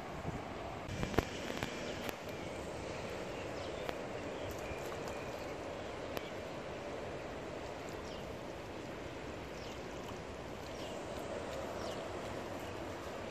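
Steady outdoor background noise with a few sharp clicks and faint short high chirps, as otters splash and feed in the river shallows at the bank.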